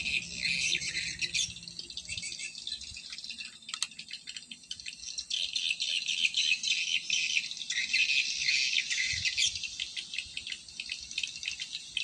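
Insect chorus: a dense, shrill, fast-pulsing buzz that swells and fades, loudest at the start and again from about six seconds in.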